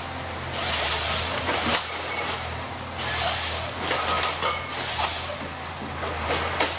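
A heavy machine's engine running steadily, with repeated rasping, hissing bursts of noise every second or so.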